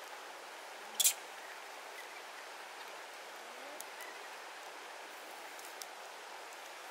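Steady outdoor background hiss, with one sharp snap about a second in and a few faint ticks.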